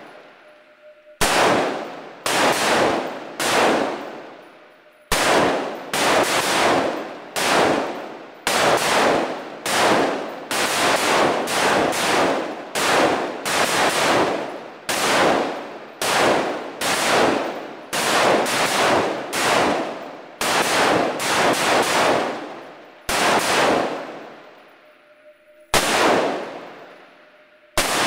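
Rifle fire from several shooters on a firing line: dozens of sharp single shots at an irregular pace, sometimes overlapping, each with a long echoing tail. The shots come thickest through the middle and thin out near the end.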